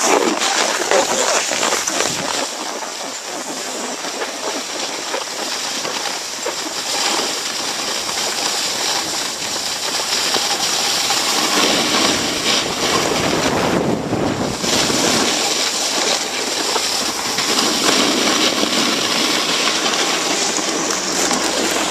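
Steady rushing noise inside a moving ski-resort gondola cabin, with small rattles and knocks throughout.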